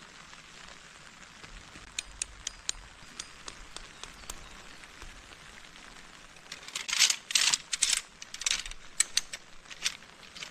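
Steady rain hiss with scattered sharp raindrop ticks. In the second half comes a cluster of much louder noisy bursts, then a few more.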